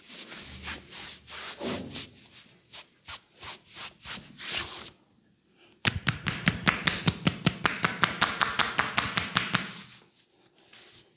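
Hands massaging a man's back and shoulders through a t-shirt: brisk rhythmic rubbing strokes of hands on cloth. After a short pause about five seconds in, a rapid, louder run of even slaps as the hands strike the back in quick chopping strokes for about four seconds, then softer rubbing.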